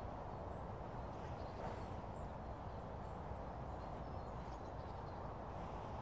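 Steady outdoor rural background noise with a low rumble, and a few faint, short, high bird chirps.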